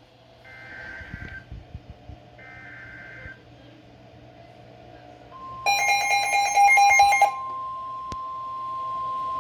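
Emergency Alert System header: two faint warbling one-second data bursts, then, about five seconds in, the steady single-pitch NOAA Weather Radio alert tone begins and keeps sounding. Over its first second and a half a loud pulsing electronic chime sounds.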